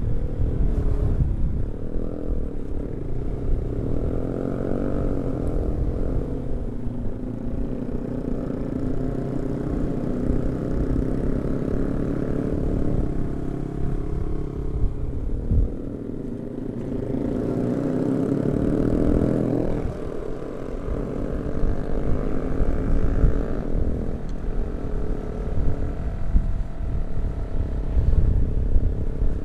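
Yamaha R15 V3 motorcycle's single-cylinder engine running on the road, its pitch rising as it accelerates and falling back at gear changes, with wind rumbling on the microphone.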